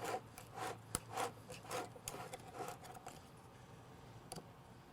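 Sandpaper rubbed back and forth by hand in quick, faint strokes, about two or three a second, dying away about three seconds in.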